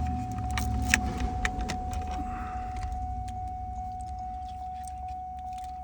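Keys jangling and small metal clicks as a key and ignition lock cylinder are worked and jiggled into a GM steering column that resists, mostly in the first half. A steady single high tone and a low hum run underneath.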